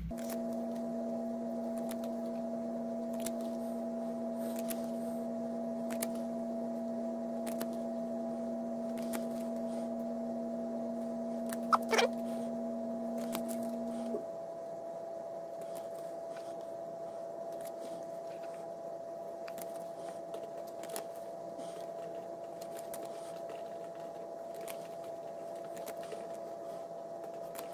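Trading cards being handled and flicked through, with scattered faint clicks, over a steady two-tone hum whose lower tone cuts off about halfway. A brief rising squeak comes near the middle.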